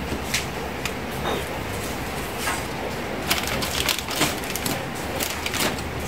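Crinkling and short clicks of coloured paper and plastic straw pieces being handled and pressed into place, sparse at first and busier in the second half, over a steady low hum.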